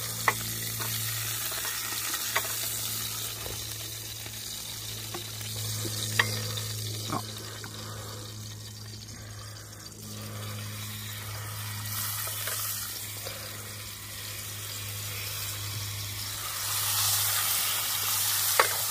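Food sizzling in a stainless steel frying pan on a portable gas cartridge stove, with a few sharp taps of a metal utensil against the pan. The sizzling grows louder near the end as slices of meat go into the pan.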